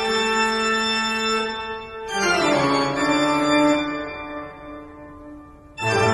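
Organ music: a held chord, then a quick falling run about two seconds in that settles into a lower chord and fades, and a new loud chord near the end.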